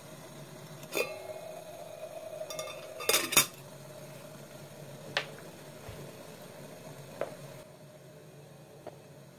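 Stainless steel camping kettle heating on a gas camping stove close to the boil: a steady low rush from the burner and water, with sharp metallic clinks from the kettle and its lid. The loudest is a quick pair about three seconds in, with single ticks every couple of seconds after.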